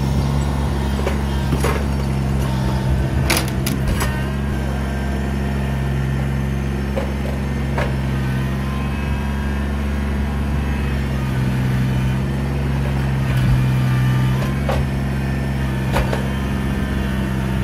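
Kubota BX23S compact tractor's diesel engine running steadily at raised throttle while its front loader shoves a junk boat into a dumpster, with scattered sharp knocks and clanks as the boat and loader bump against the dumpster.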